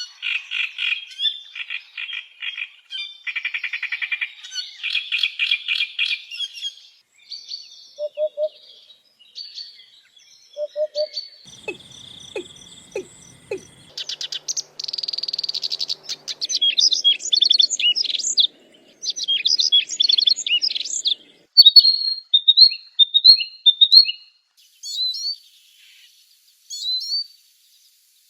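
Calls of several different songbirds in turn: fast pulsed trills at first, then scattered chirps and whistled phrases, ending with a short down-slurred whistle repeated about once a second.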